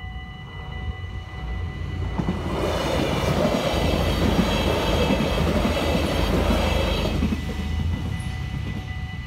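An Alstom LINT 41 diesel multiple unit passes over the level crossing, its rumble and wheel noise building about two seconds in, loudest midway and dying away near the end. Under it the crossing's bells ring steadily.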